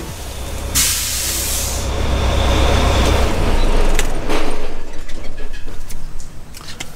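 Volvo VNL semi-truck running, with a hiss of air brakes lasting about a second, about a second in. The low engine rumble drops away a little over three seconds in.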